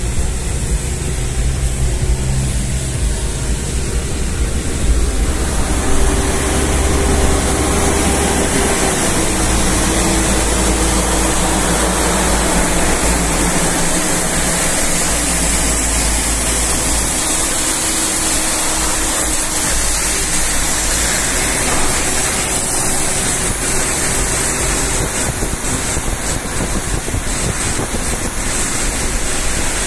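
Steady road noise of traffic on a wet road, heard from inside a moving car: a constant hiss of tyres on wet asphalt and rain, under a low engine drone whose pitch shifts several times, first between about five and nine seconds in.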